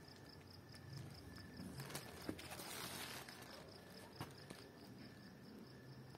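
Near silence: faint background with a steady high-pitched pulsing chirp, several pulses a second, and a few soft shuffles and clicks.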